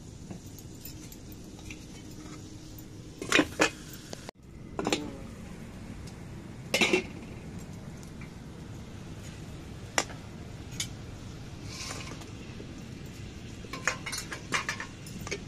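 A steel ladle and spatula clinking against an aluminium kadai and a steel plate: scattered sharp metal clinks, a quick pair about three seconds in and a small cluster near the end, over a steady low background noise.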